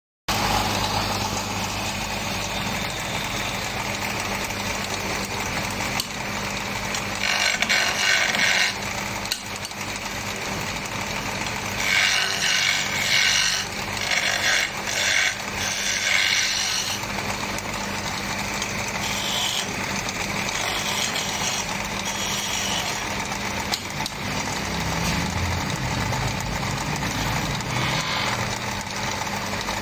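Wood lathe motor running with a steady hum while a turning tool cuts into the spinning wood, with louder stretches of cutting about a quarter of the way in and again around the middle.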